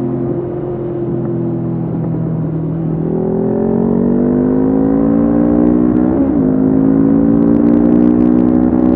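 Honda CB500F's 471 cc parallel-twin engine through a Mivv GP Pro slip-on exhaust, heard from on the moving bike. The revs ease off about half a second in, climb steadily for a few seconds, drop sharply with an upshift a little past halfway, and then climb again.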